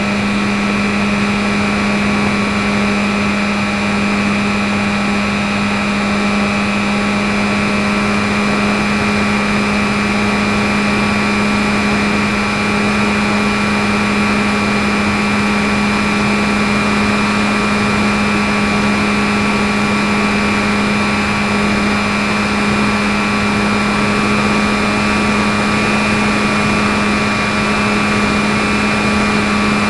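E-flite 450 860Kv brushless electric motor spinning a 10x5 propeller in cruising flight, a steady unchanging drone with a higher whine over rushing air, heard from a camera riding on the plane.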